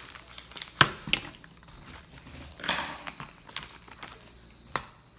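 Hands handling things on a wooden table, with a small cardboard box and scissors among them: a sharp knock about a second in, then a few scattered clicks and a short rustle of the box.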